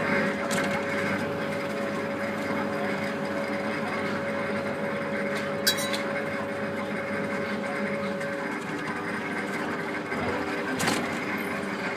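Suspended monorail ride car running along its overhead track: a steady mechanical hum of its drive with several held tones, one of which drops out about two-thirds of the way through. A sharp click comes near the middle and a knock near the end.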